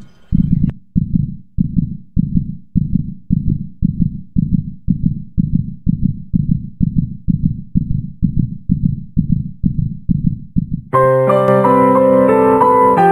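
Heartbeat sound effect: a steady low double thump, a little under two beats a second. About eleven seconds in it stops and soft piano music takes over.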